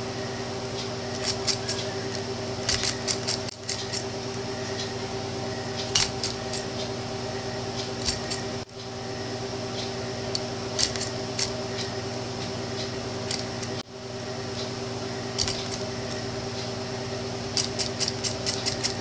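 Homemade solenoid engine being coaxed to start: irregular clusters of sharp clicks from the iron-nail plunger and the bent-wire contact switch, with a steady electrical hum underneath. It fires in fits but does not keep running.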